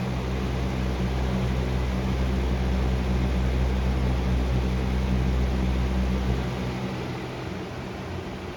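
Lasko B20200 20-inch box fan running on medium speed: a steady rush of air with a low electric motor hum. A deeper low rumble from the fan shaking fades about six and a half seconds in.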